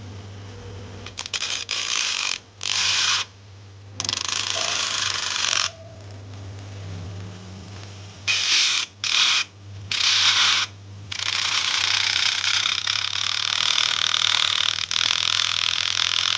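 DIY grinder made from a CPU fan grinding against a workpiece in loud hissing bursts that start and stop sharply: several short ones, then one long stretch from about eleven seconds in. A steady low hum runs underneath.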